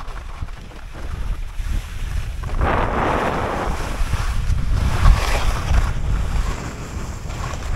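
Wind buffeting the microphone with a steady low rumble. A louder rushing hiss comes in about two and a half seconds in and eases off near the end.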